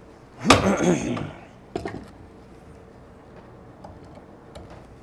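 Wooden furniture parts creaking and knocking as they are handled: a loud creak with a wavering pitch about half a second in, then a sharp knock near two seconds. After that there is only a faint steady hum.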